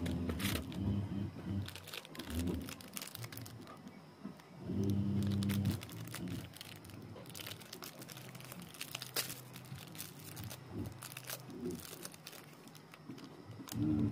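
Thin plastic snack-cake wrapper being crinkled and torn open by hand, with scattered crackles. A low, steady hum sounds briefly at the start and again for about a second around five seconds in.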